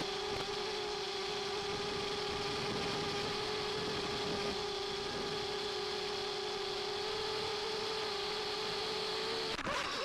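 Mini racing quadcopter's motors and propellers whining at a steady pitch, carried on its FPV video downlink. Near the end the whine wavers and breaks up into clattering knocks as the quad crashes into a tree.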